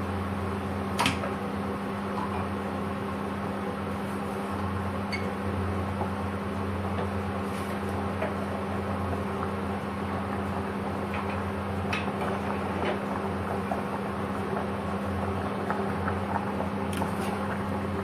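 Induction cooktop running under a pot: a steady electrical hum with the whir of its cooling fan. A sharp click comes about a second in, and a few light taps follow near the end.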